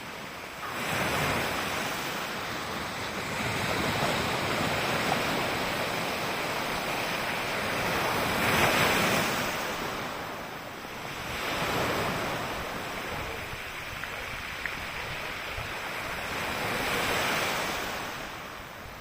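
Sea waves washing onto the shore: a steady rush that swells and falls back several times, loudest about halfway through.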